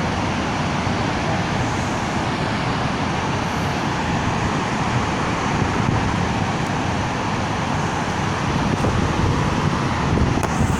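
Steady rushing of floodwater pouring out through open flood gates, an even noise that does not change.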